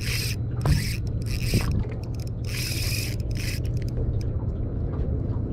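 Spinning reel being cranked, its gears and line rolller giving short rasping, scraping whirrs in uneven bursts, over a steady low hum.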